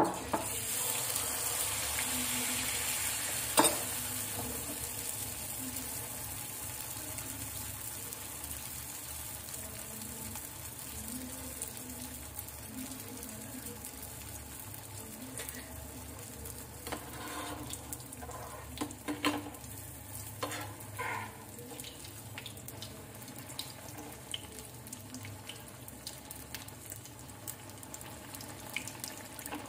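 Malpua batter poured into hot ghee in a shallow pan, frying with a sizzle that is loudest as the batter goes in and settles into a quieter steady sizzle. A sharp click comes a few seconds in, and a few light knocks later on.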